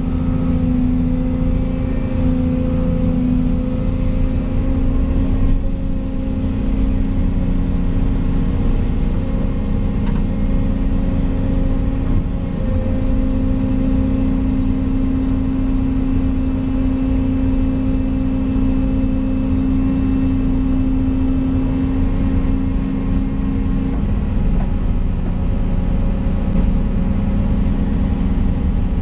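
Volvo EC220 excavator's diesel engine running steadily, heard from inside the cab. A steady hum rides over the engine, shifting in pitch about twelve seconds in and dropping out a few seconds before the end.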